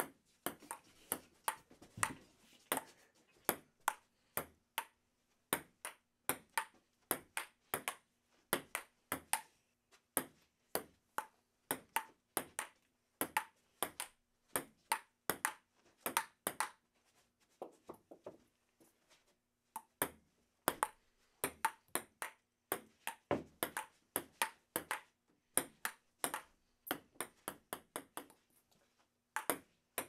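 Table tennis rally: a ping-pong ball clicking sharply off the paddles and the table, two or three hits a second, often in quick pairs, with a brief lull a little past the middle.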